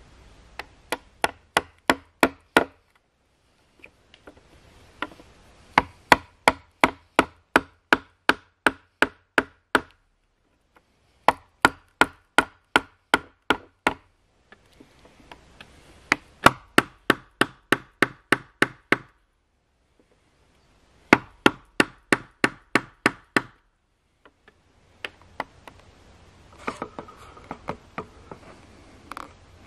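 Repeated sharp blows of a hand tool cutting a rectangular notch into a round timber pole, about three strikes a second in runs of eight to ten, separated by short breaks. Near the end the strikes give way to a few lighter, scattered knocks.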